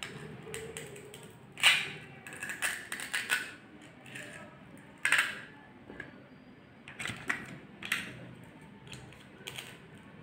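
Plastic toy kitchen pieces clicking and clattering as a plastic toy knife and toy fruit are handled and cut, with a sharper click about one and a half seconds in and another about five seconds in.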